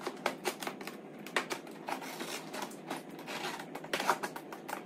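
Utility knife blade slicing along the packing tape on the top seam of a cardboard box: a quick, uneven run of scratchy clicks and rasps.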